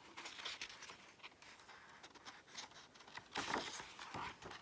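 A picture book's page being turned: soft paper rustling, faint at first and loudest in the last second or so.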